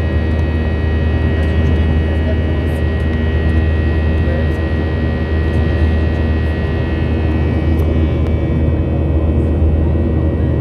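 Steady cabin noise inside a Boeing 737-800 in its climb after takeoff: a loud low drone from the CFM56-7B turbofan engines with steady whining tones above it.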